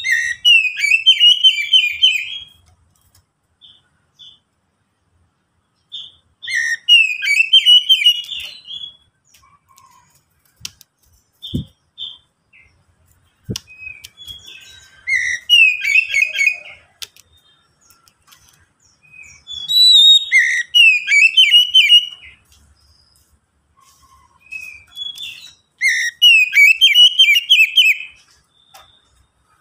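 Oriental magpie-robin (kacer) singing: five phrases of loud, rich whistled notes laced with rapid high twittering. Each phrase lasts two to three seconds and they come roughly every five to six seconds, with a few soft single notes in between.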